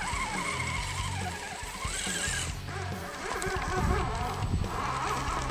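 Axial SCX10 III Bronco RC rock crawler's electric motor and drivetrain whining as it crawls over rocks, rising and falling with the throttle and cutting out briefly about two and a half seconds in. Background music plays under it.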